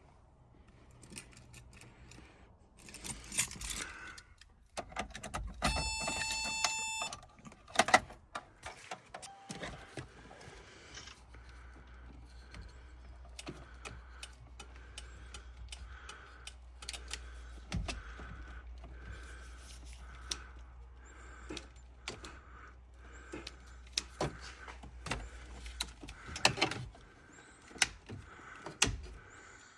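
Clicks and rattles of a 1986 Toyota 4Runner's wiper and headlight combination switch being worked through its positions. About six seconds in there is a brief electronic warning tone. Later comes a steady low electric-motor hum with a faint regular beat about once a second, as the wipers run.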